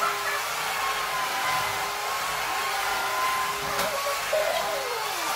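Cordless electric floor sweeper running: a steady whir from its small motor and spinning brush head.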